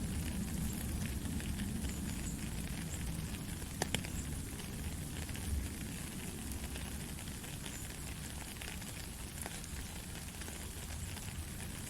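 Steady rain with many small drops pattering and ticking, and a sharper drop click about four seconds in.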